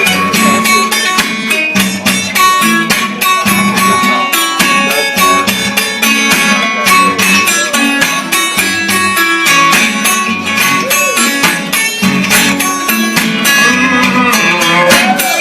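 Live instrumental break of a country-blues song: a guitar is strummed and picked in a steady, driving rhythm, with no singing.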